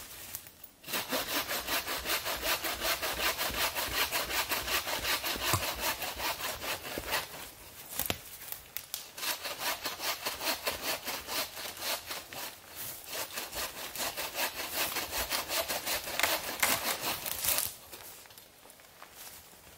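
Wooden-frame bow saw cutting through a fallen log in quick, even back-and-forth strokes, with a short break about eight seconds in. The sawing stops near the end.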